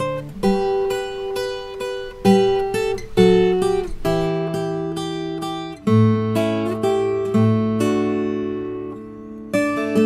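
Background music: an acoustic guitar playing plucked notes and chords that ring and fade.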